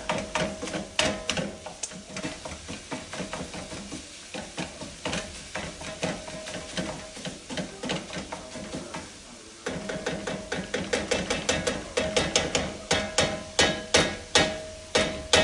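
Meat masher tapping and scraping against a skillet as browning ground meat is broken up: quick repeated taps, several a second, loudest near the end.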